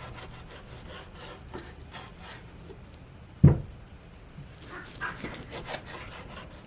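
Kitchen knife working on a wooden cutting board, slicing the seared steak: light scraping strokes and small taps, with one sharp knock of the blade or board about three and a half seconds in and a few lighter knocks around five seconds.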